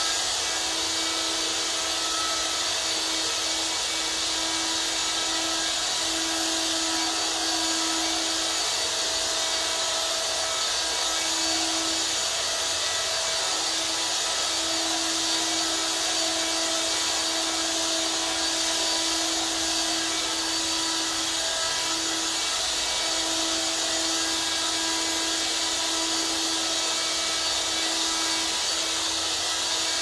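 Vacuum cleaner running steadily: a constant hiss of rushing air over a motor whine held at one pitch, with a low hum that wavers slightly in strength.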